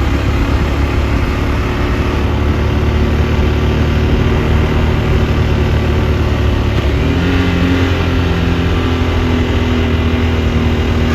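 KTM 390 Adventure's single-cylinder engine running steadily under way; its pitch rises about seven seconds in as the revs pick up.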